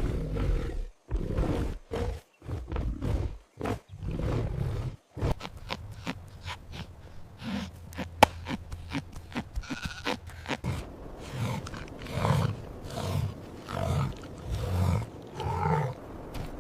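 Recorded calls of a large animal: a string of low roars and grunts, broken by short gaps at first, then a regular run of short grunts in the last few seconds.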